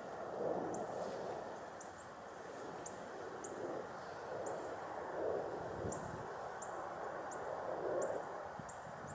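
Outdoor ambience with a small bird giving short, high chirps about twice a second, over a steady low background noise that swells every few seconds.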